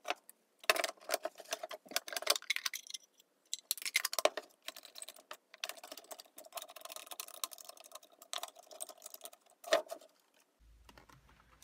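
Heathkit MM-1 multimeter's bakelite case being fitted back over its chassis and screwed shut: a run of small clicks, scrapes and light rattles as the case slides on and the screws are driven, with one sharper knock near the end.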